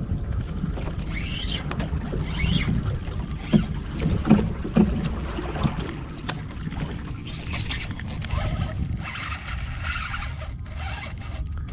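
Wind buffeting the microphone aboard a small skiff, with water and boat noise underneath and a few sharp knocks about four seconds in. A high buzzing whirr comes in about eight seconds in and lasts some three seconds.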